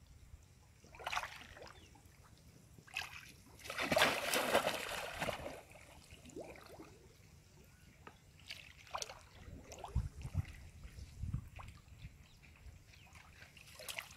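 Shallow muddy water sloshing and splashing as a person wades and gropes through it by hand, in several separate bursts. The largest and longest comes about four seconds in.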